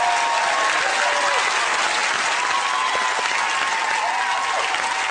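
Large studio audience applauding, with voices calling out above the clapping.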